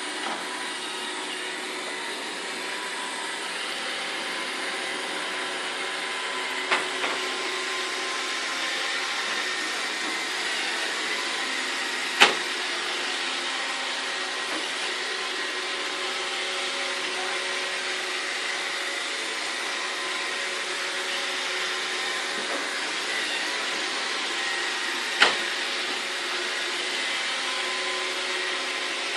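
iRobot Roomba 631 robot vacuum running steadily, its motor hum and whine carrying a few steady tones. A few sharp knocks stand out, the loudest about twelve seconds in.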